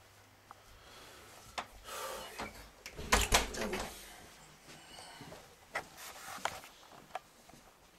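Handling noise from a handheld camcorder being carried through a doorway: scattered clicks and knocks, loudest in a cluster about three seconds in.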